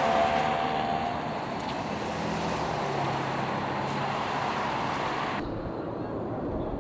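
Car passing close by with engine and tyre noise, loudest at the start and easing off into steady street traffic.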